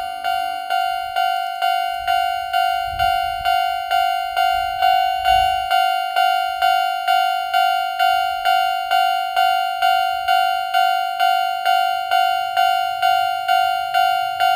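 Chichibu Railway level crossing's electronic warning bell ringing in an even rhythm of about two strikes a second, with brief low rumbles about three and five seconds in.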